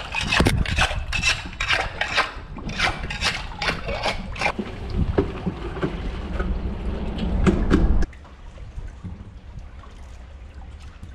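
Water splashing and dribbling around a hand working in the water beside a kayak, mixed with short knocks of handling. The splashing stops abruptly about eight seconds in, leaving quieter water noise.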